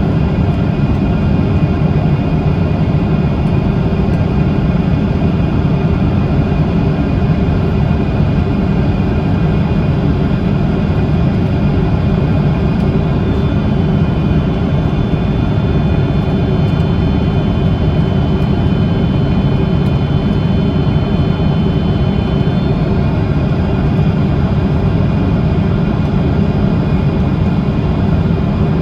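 Jet airliner running steadily with a deep, even rumble. Midway a faint high whine joins in, then fades before the end.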